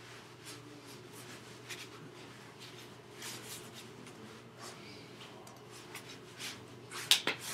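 Soft rustling and brushing of hands and jacket sleeves as a person gestures, in short scattered scratches over a steady low electrical hum, with one sharper tap near the end.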